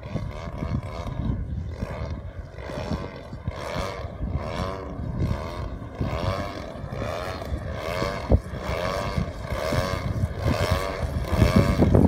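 DA 60 single-cylinder two-stroke gas engine of a large-scale Extra 300 RC aerobatic plane running in flight. Its pitch wavers up and down about twice a second, and it grows louder near the end as the plane comes close. Wind rumbles on the microphone underneath.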